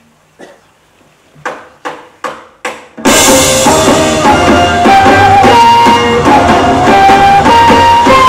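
Four quick count-in strikes, a little under half a second apart, then a live band comes in loudly all at once with drum kit and a melody line stepping upward.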